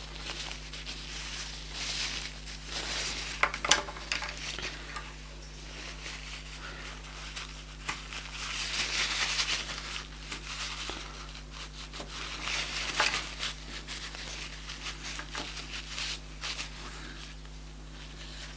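A wad of paper tissue rubbing and crinkling against a rimless eyeglass lens, wiping off glue residue, in uneven scratchy bursts with a few sharp clicks. A steady low hum runs underneath.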